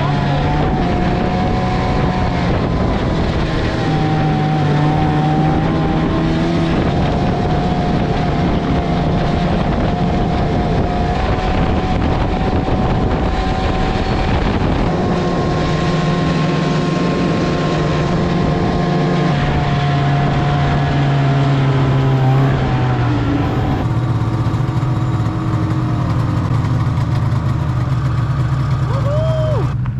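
Snowmobile engine running steadily under way on a groomed trail, heard from aboard the moving sled, its pitch wavering slightly with the throttle.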